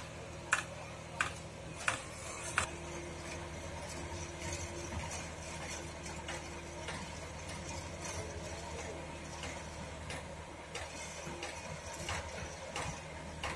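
Crane engine running steadily, with a row of sharp clicks about two-thirds of a second apart over the first three seconds.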